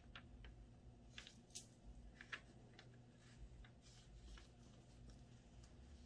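Very faint, scattered crackles and ticks of stencil paper being smoothed onto skin by nitrile-gloved hands, over near-silent room tone.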